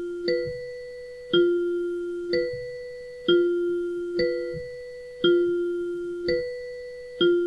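Countdown music for a quiz's answer time: two bell-like chime notes alternating, about one a second, each ringing out until the next, like a clock's tick-tock.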